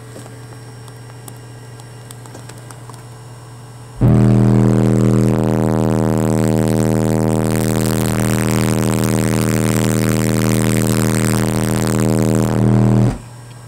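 Two Soundstream XXX 15-inch subwoofers, driven by Soundstream XXX 6500 amplifiers at a 1-ohm load, playing a steady 40 Hz test tone at full power inside a sealed truck cab. The tone comes in about four seconds in as a loud, heavily distorted drone and cuts off sharply near the end.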